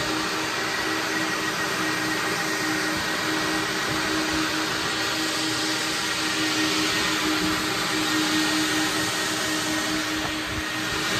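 Vacuum cleaner running steadily while a car's interior is vacuumed: an even hum under a broad hiss, with no change in pitch or level.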